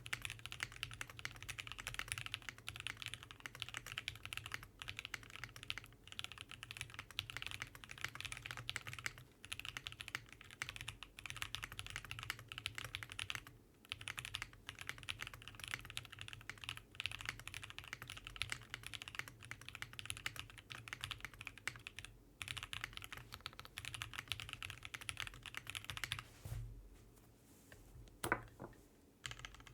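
Continuous fast typing on a Vega 65% mechanical keyboard with lubed, filmed Alpaca linear switches and GMK keycaps: a dense run of keystrokes with a few short pauses. Near the end, after a brief lull, comes one louder keystroke.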